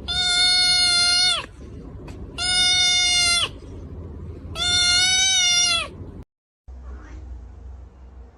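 A cat meowing three times in long, drawn-out, level-pitched meows, each just over a second long and about two seconds apart, ending in a slight downward bend. The sound then cuts off about six seconds in.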